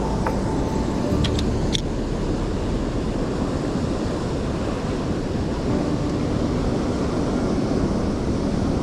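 Steady rushing outdoor noise, heaviest in the low end, with no breaks or distinct events.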